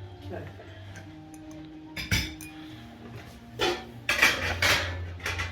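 Crockery and cutlery clinking, with sharp clinks about two seconds in and a cluster near the end, over faint background music.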